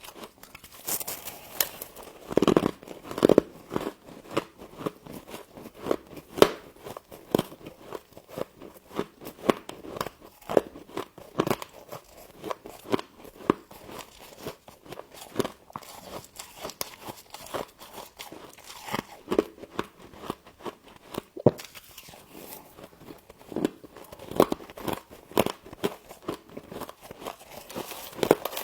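A person biting and chewing frost close to the microphone: a steady run of crisp, irregular crunches and crackles, with a couple of heavier bites a few seconds in.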